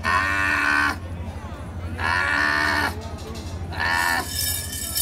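Three long, steady-pitched calls, each about a second long, followed a little after four seconds in by a small brass hand bell ringing.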